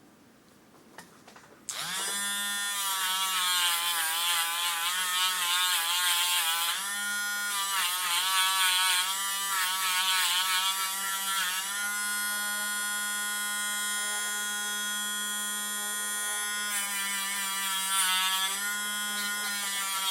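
A small handheld electric motor tool starts about two seconds in and runs with a high whine. Its pitch dips and recovers several times as it is pressed against the work, then holds steady for a few seconds near the end.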